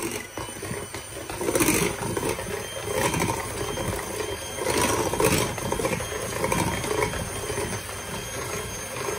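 Electric hand mixer switched on and running steadily, its twin wire beaters whirring through a runny egg, sugar and yogurt batter in a glass bowl, with a steady high motor whine and a few louder swells as the beaters move around the bowl.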